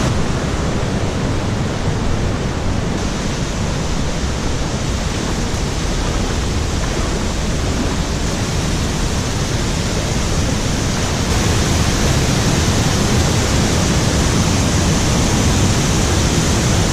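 Steady, even rush of fast-flowing creek water over cascades, getting a little louder about eleven seconds in.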